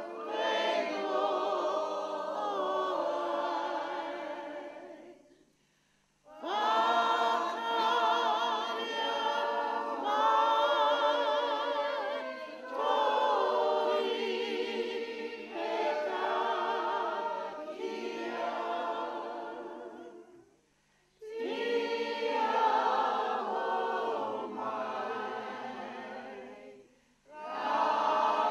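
A group of people singing a welcome song together without accompaniment. The long sung phrases waver in pitch and are broken by three short pauses for breath.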